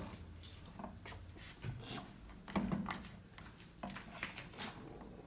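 Faint, scattered light clicks and rubbing as a child handles plastic toy kitchen pieces.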